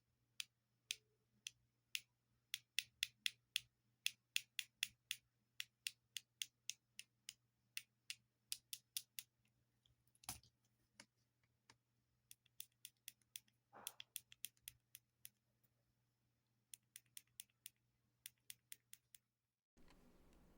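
Buttons being pressed and clicked close to the microphone: sharp single clicks in quick, uneven runs, often two or three a second, with one louder click about ten seconds in and a duller knock a few seconds later. The clicking stops near the end and gives way to a faint hiss.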